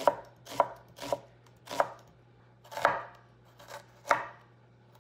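Chef's knife slicing an onion on a wooden cutting board: about seven sharp knocks of the blade through the onion onto the board, unevenly spaced half a second to a second apart, ending about four seconds in.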